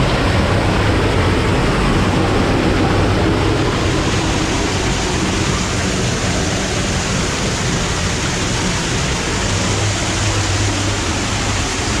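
Water pouring through a rectangular opening in a tunnel wall as a small waterfall: a loud, steady rush of falling water.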